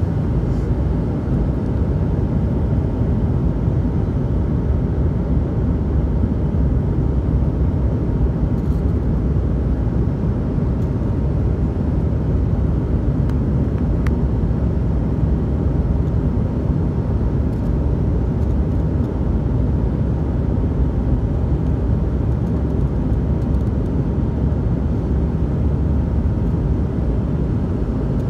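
Steady low cabin rumble of a McDonnell Douglas MD-88 airliner in flight on approach to land: airflow noise and its rear-mounted Pratt & Whitney JT8D turbofans, with a faint steady whine above the rumble.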